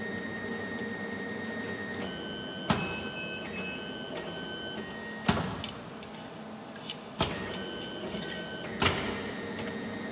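Automatic wire cut-and-strip machine running a cycle: a steady high whine, then motor drives whining in short steady high tones that start and stop, with five sharp clacks, the loudest about three and five seconds in.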